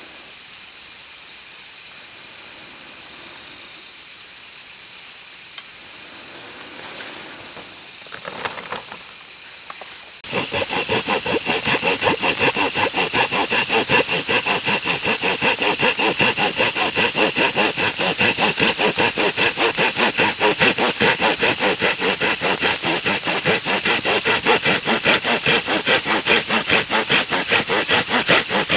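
A steady, high, thin insect trill. About ten seconds in, it switches abruptly to a much louder, fast, even pulsing insect call that carries on.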